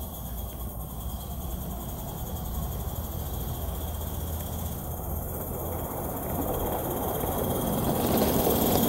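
Accucraft L&B 'Lyn' 2-4-2 live-steam tank locomotive in 16mm scale running along garden-railway track, pushing a model snow plough. A steady running noise grows louder as it approaches and is loudest near the end.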